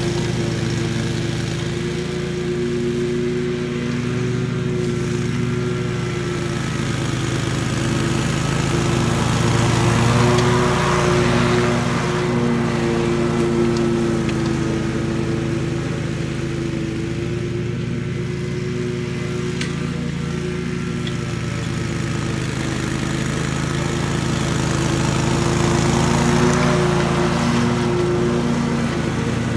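Scag walk-behind commercial mower engine running steadily while cutting grass, growing louder twice as the mower passes close by.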